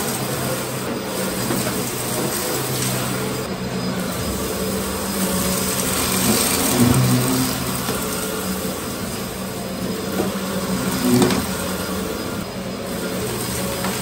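Dyson DC04 cyclonic upright vacuum cleaner running steadily while pushed over a dirty carpet, a motor hum with a rushing of air. It swells briefly twice, about halfway and near the end.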